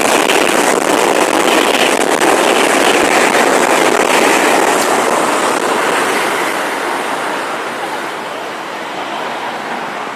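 Jet aircraft engine noise: a loud, steady rushing roar that slowly fades over the last few seconds.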